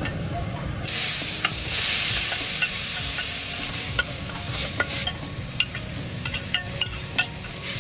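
Food dropped into hot oil in a pan, sizzling loudly from about a second in, with a spatula stirring and clicking against the pan. A low steady hum runs underneath.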